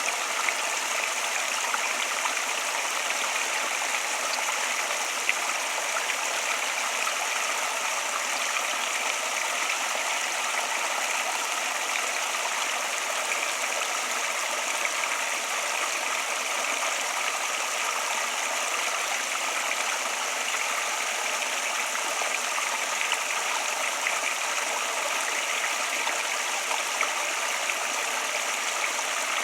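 Water flowing steadily in a stream, a continuous even rush with small splashes and no pauses.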